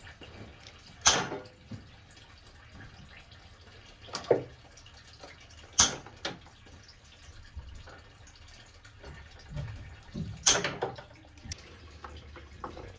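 Wire strippers working electrical wire: four sharp snaps a few seconds apart, with quieter handling rustle between.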